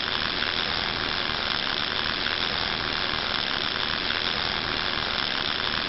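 Steady hiss with a faint crackle from a gas-shielded wire-feed welding arc, as the rotating torch of a WS2 portable boring-and-welding machine lays a weld bead around the inside of a bore.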